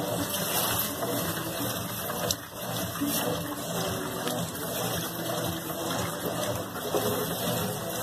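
Consul CWG12 top-loading washing machine agitating a load of cleaning cloths: a steady motor hum under water sloshing and churning as the agitator swings the soapy load back and forth, with a brief drop in level about two seconds in.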